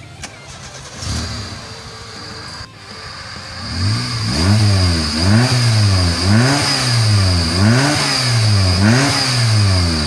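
Suzuki Baleno four-cylinder engine with a welded racing exhaust, revved in repeated throttle blips from about four seconds in, its pitch rising and falling about once a second.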